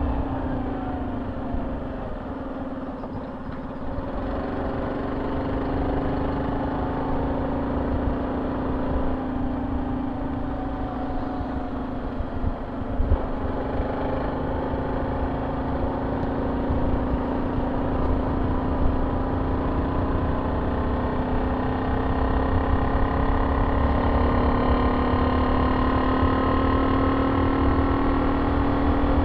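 Honda C70's single-cylinder four-stroke engine running through a banana-style aftermarket exhaust while riding, a steady exhaust note over wind rumble on the microphone. The note gets a little louder and higher in the last several seconds.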